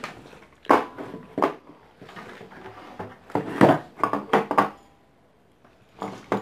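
A series of sharp clicks and knocks from handling an audio mixer's power cable, with its round metal plug, and a plastic extension socket board being set down on a table. Several knocks come close together about three to four and a half seconds in, then it goes nearly quiet before one more knock.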